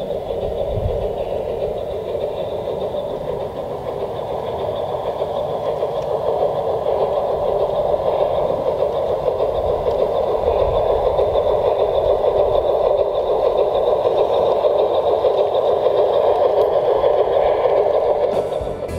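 LGB G-scale garden railway trains running, with electric motors whirring and wheels rolling on the rails. The hum is steady and grows louder over the second half as the coaches pass close by.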